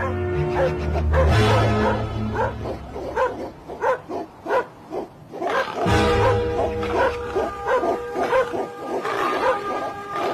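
Dogs barking rapidly and repeatedly, several barks a second, over background music.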